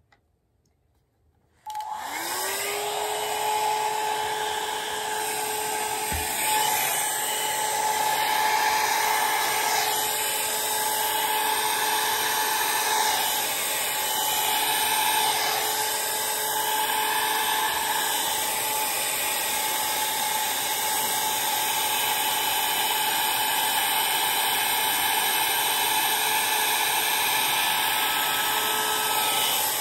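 Revlon round hot air brush switched on: its motor whines up to speed within a moment, then runs steadily with a loud rush of blown air as it is worked through long hair.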